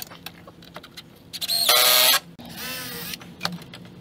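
Cordless power driver driving a screw into the wooden gate: one loud whining run of about half a second, then a quieter, shorter run that wavers in pitch. Small handling clicks around them.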